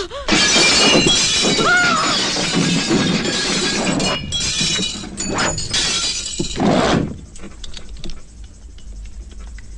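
Glass windows of a horse-drawn stagecoach shattering in a run of crashes and breaking for about seven seconds, then dying down.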